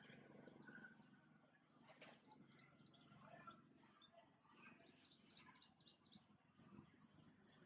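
Near silence: faint outdoor ambience with a few faint, short, high-pitched chirps about five seconds in.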